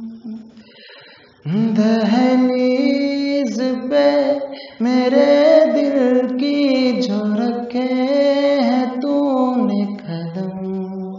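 A song with a solo voice singing a sustained, gliding melody. The singing comes in about a second and a half in, after a short quiet spell.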